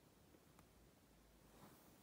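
Near silence: faint room tone, with a faint tick about half a second in and a brief faint rustle near the end.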